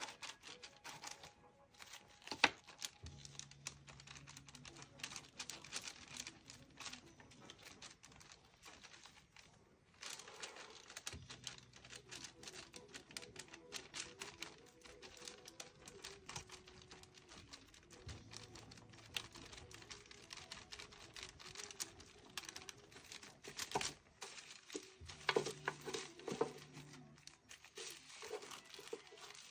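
Faint crinkling and light clicking as a painted silicone doll is handled on paper, its hands and feet wrapped in plastic wrap, with one sharp click about two seconds in.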